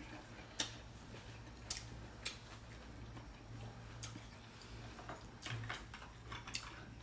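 Sparse, irregular light clicks of chopsticks and a spoon tapping against bowls and a serving platter while eating, about eight in all, over a low steady hum.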